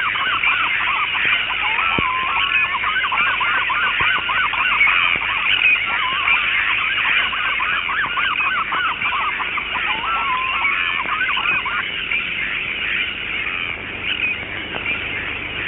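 A large flock of birds calling at once, many short overlapping honking calls; the lower calls drop away about twelve seconds in, leaving a thinner chatter.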